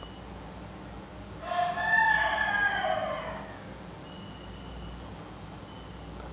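A rooster crowing once, a call about two seconds long whose pitch slides down at the end, over a low steady background hum.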